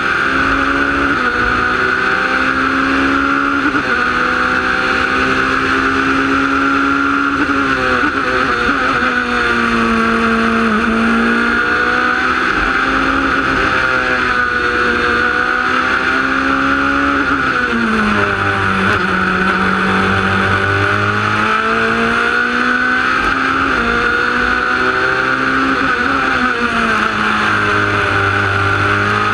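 Wolf GB08-Honda sports prototype's engine heard onboard at racing speed, its pitch climbing steadily as it accelerates and dropping sharply several times under braking and downshifts for corners. A steady rush of wind noise over the open cockpit runs underneath.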